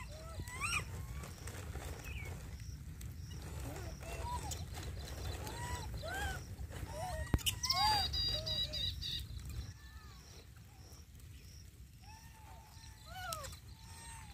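Rhesus macaques giving short, arched chirping coo calls, one at a time and scattered throughout, over a low rumble that drops away about ten seconds in.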